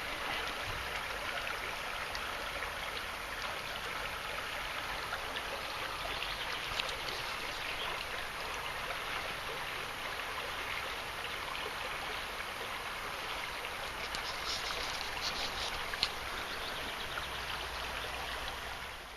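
River water flowing steadily in a trout stream, an even rushing sound throughout, with a sharp tick near the end.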